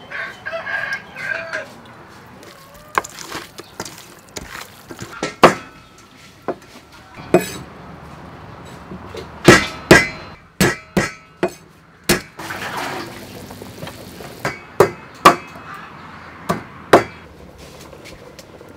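A cleaver chopping on a thick wooden chopping block, a dozen or so sharp chops scattered through, some in quick pairs. A rooster crows near the start.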